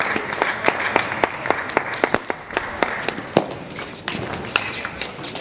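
Table tennis ball clicking off the rackets and the table in a fast doubles rally, about four clicks a second, over a steady murmur of hall noise.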